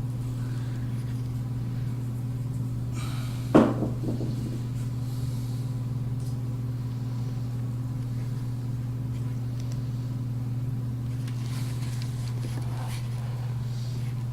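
A steady low hum, with one sharp knock about three and a half seconds in.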